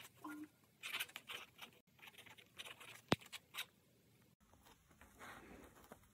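Kaweco fountain pen nib scratching faintly on notebook paper in short handwriting strokes, with one sharp tick about three seconds in.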